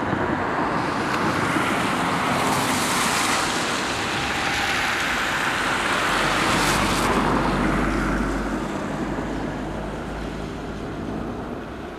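Road traffic passing on a wet, slushy street: tyre hiss that swells as cars go by, loudest about three seconds in and again around six to eight seconds, with a low engine rumble in the second pass, then fading.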